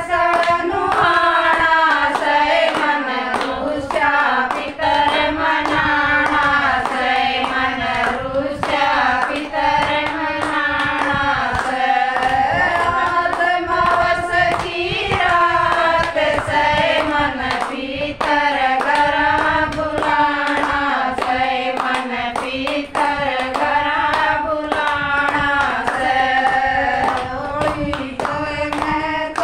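A group of women singing a devotional bhajan together, with steady rhythmic hand clapping keeping time.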